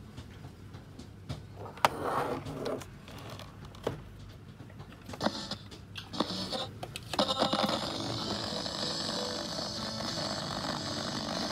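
Clicks and scraping as a National RC-6075 clock radio is handled and turned over on a desk. About seven seconds in, its speaker starts a steady hiss of static.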